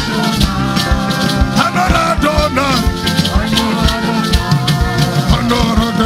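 Live gospel praise music: a keyboard-led band with drums and a shaker keeping a steady beat, and a voice singing over it.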